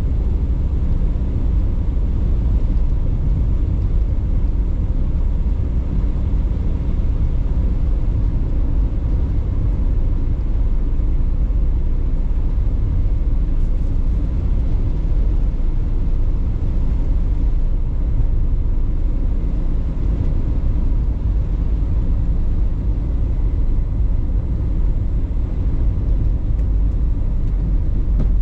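Steady low rumble of a car driving along the road, its tyre and engine noise heard from inside the cabin.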